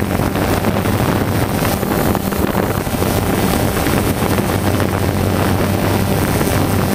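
A camera drone's propellers and motors running steadily: an even low hum over a constant rushing noise.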